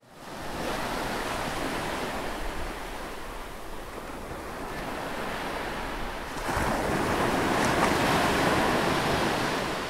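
Ocean waves washing in as a steady rush of surf, swelling louder about six and a half seconds in.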